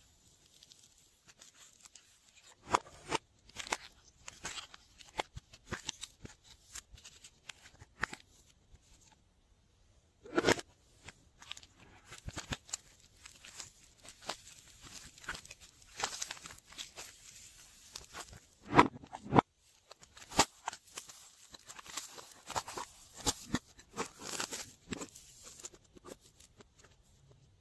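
Slime being mixed and kneaded by hand, giving a run of irregular sticky clicks, pops and crackles with a few louder pops and brief pauses.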